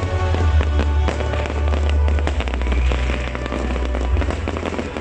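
Fireworks bursting and crackling in quick succession over loud music with a heavy bass line.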